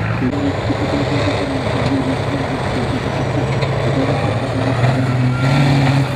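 Tatra 8x8 trial truck's engine working hard under load as it crawls through deep mud, running steadily, then rising slightly in pitch and getting louder about five seconds in.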